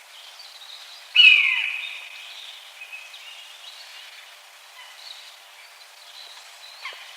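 Common buzzard giving one loud mewing cry about a second in, a high call that slides down in pitch, with fainter chirps in the background.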